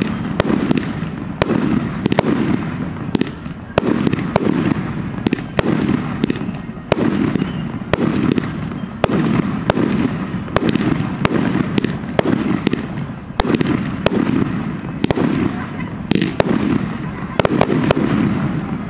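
Aerial fireworks bursting in quick succession: many sharp bangs over a continuous low rumble, easing off at the very end.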